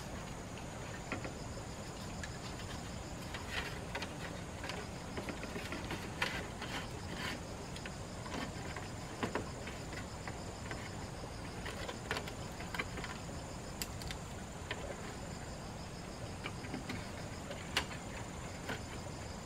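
Insects chirring steadily in a high, even drone, with scattered irregular rustles and snaps of dry leaf thatch and bamboo being handled.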